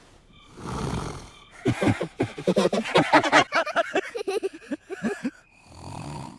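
Cartoon snoring that has been heavily distorted by editing effects. A breathy snore comes about a second in and another near the end, with a fast, sputtering run of pitched vocal sounds between them.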